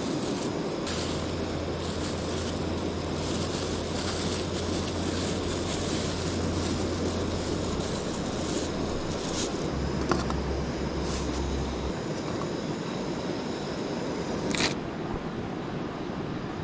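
Steady rushing of a mountain stream, with a low hum that comes and goes twice and a sharp click near the end.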